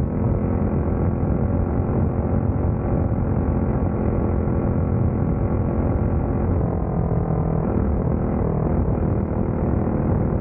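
Open-wheel dirt-track race car's engine running hard at racing speed, heard on board the car: a loud, steady drone whose pitch wavers slightly.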